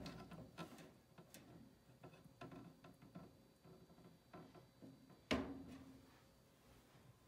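Mostly near silence with faint scattered clicks, and one louder knock about five seconds in that fades quickly, as the mesh screen lid of a glass terrarium is slid shut.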